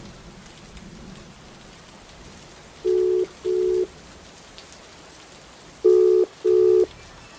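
Telephone ringback tone heard through the handset of an outgoing call: two double rings, each a pair of short, steady, low beeps, about three seconds apart, over a steady background hiss.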